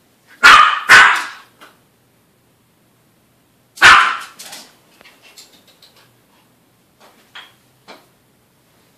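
Small dog barking: two loud, sharp barks about half a second apart, a third a few seconds later, then a couple of faint yips near the end.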